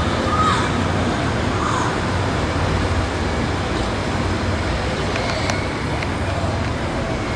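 Steady outdoor background noise: a continuous hum of road traffic with faint voices of onlookers mixed in.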